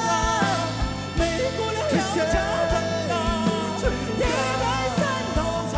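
A man singing a song with held, bending notes over instrumental backing with a steady beat.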